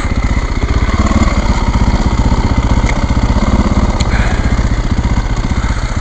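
Single-cylinder trail motorcycle engine running steadily at low revs, a fast, even low-pitched beat.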